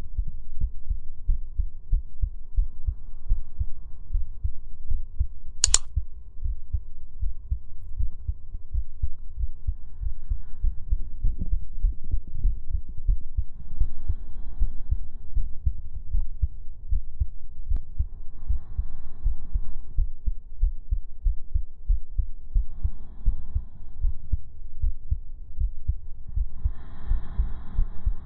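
Amplified heartbeat: a steady, even run of low thumps, with one sharp click about six seconds in.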